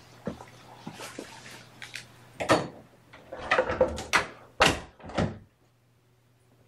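A run of sharp knocks and thumps off camera, the last two about half a second apart, then near silence.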